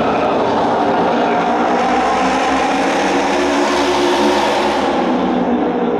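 A pack of Japanese autorace motorcycles, 600 cc twin-cylinder racing engines, running hard at full throttle around the oval. The sound is loud and steady, growing brighter as the bikes pass nearest, about four seconds in, and dulling just before the end.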